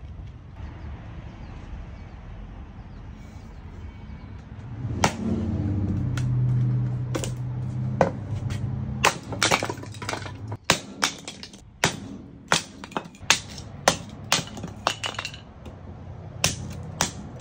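TBS Grizedale hatchet, a 500 g forged carbon-steel head on a hickory handle, chopping and splitting kindling on a stump chopping block. There is a single strike about five seconds in, then from about nine seconds in a fast run of sharp chopping cracks, two or three a second. A low steady hum sits underneath for several seconds in the middle.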